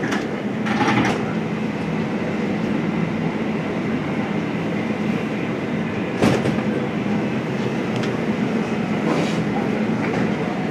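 A steady low mechanical rumble and hum, with a few sharp knocks about a second in, about six seconds in and again about nine seconds in.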